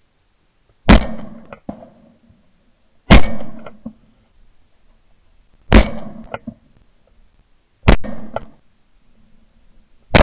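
Shotgun shots at clay targets, recorded from a camera mounted on the gun: four sharp reports about two to two and a half seconds apart, each with a short echoing tail, and a fifth right at the end.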